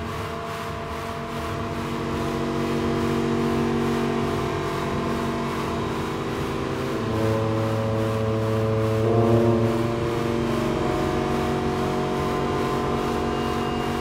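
Slow music of long held chords, the chord changing about halfway through, over the steady rush of blizzard wind.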